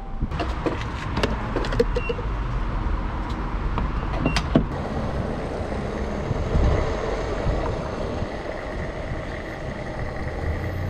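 Gasoline pump filling a car's fuel tank: a few sharp clicks and knocks in the first seconds and again about four seconds in, over a steady running hum.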